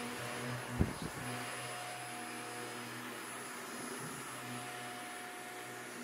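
Shark upright vacuum cleaner running steadily, a hum with a thin high whine over the rush of suction, as it picks up scattered pet bedding from a rug. A sharp knock a little under a second in, with a smaller one just after, is the loudest moment.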